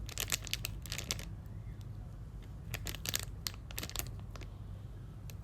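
Hands handling a mini foam squishy toy: light crinkling and clicking in two clusters, one at the start and one around three seconds in.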